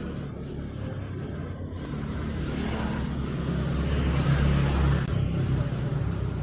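Motor vehicle rumble that grows louder to a peak about four to five seconds in, then eases off.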